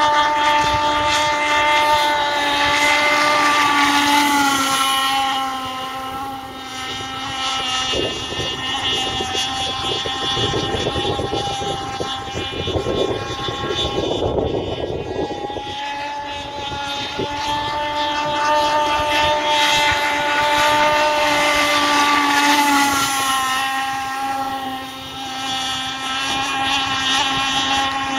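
Fully modified Zenoah two-stroke petrol engine of an Insane Cat Gen 2 RC racing catamaran running flat out at high speed, a steady high-revving engine note. For several seconds in the middle the clear note gives way to a rougher, noisier sound, then returns.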